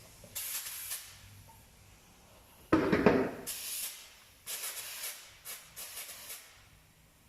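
Short bursts of compressed air hissing as a car tyre is inflated on a tyre changing machine to seat its bead, with one louder, lower rush of air about three seconds in.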